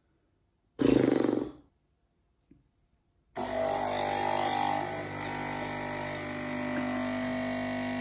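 Nespresso capsule machine's pump running steadily while brewing an espresso: an even hum made of several steady tones, starting about three and a half seconds in. Earlier, about a second in, a brief grunt-like vocal noise.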